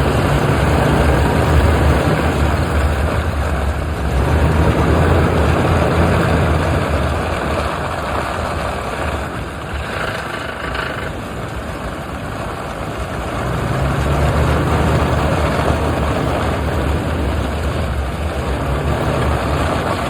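1999 Toyota Land Cruiser on the move, its engine a low drone that swells and eases in long stretches and falls back for several seconds in the middle, over steady wind and road noise.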